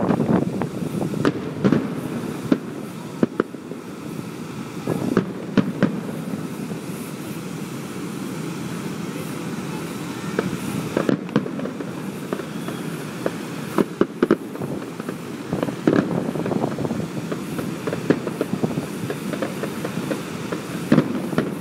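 Fireworks display: aerial shells bursting in an irregular run of sharp bangs over a continuous rumbling crackle.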